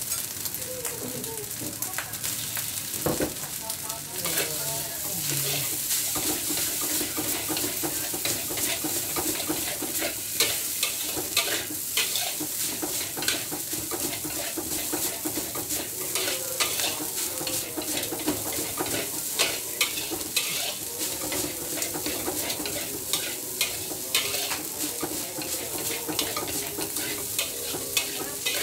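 Fried rice sizzling in a steel wok while a spatula stirs and tosses it, with frequent scrapes and clinks of the spatula against the wok over the steady frying hiss.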